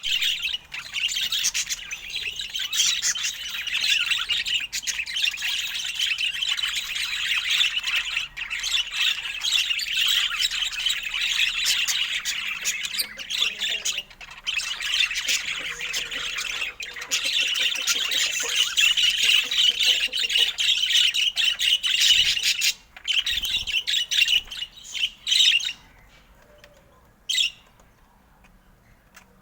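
Budgerigar chattering and warbling without a break, a dense stream of squawks and chirps. It stops about three seconds before the end, followed by one short call.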